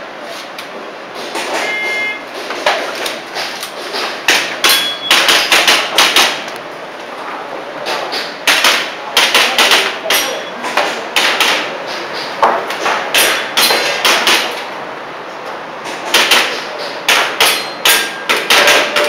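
Airsoft pistol shots fired in quick strings of sharp cracks, several a second, with pauses of a second or two between strings. A short beep sounds about two seconds in.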